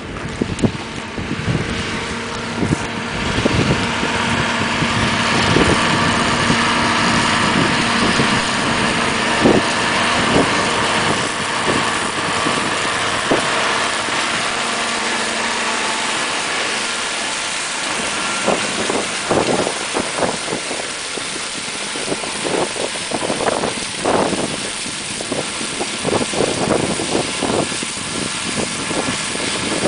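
John Deere 6125R tractor running under load while driving a John Deere 115 shredder that chops buckwheat stalks. It grows louder as the machine passes close, a few seconds in, and irregular bumps come through in the second half.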